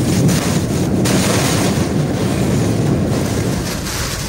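Hurricane-force eyewall wind and torrential rain lashing a truck, a loud, steady rushing noise with wind buffeting the microphone.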